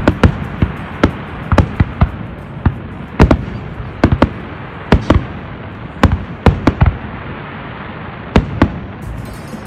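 Fireworks display: an irregular run of sharp bangs, several a second and sometimes two or three in quick succession, over a steady rushing background noise.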